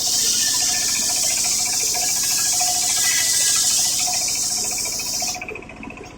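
Homemade circular saw rig cutting through coconut-palm wood: a loud, steady, high hiss of the blade in the cut that stops about five seconds in, leaving the machine's motor running underneath.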